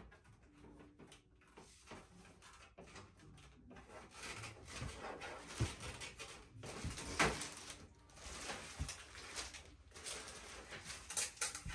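Irregular rustling and scraping of packing tape and wrapping being pulled off a new printer, with scattered knocks and clicks. It is faint at first and grows busier from about four seconds in.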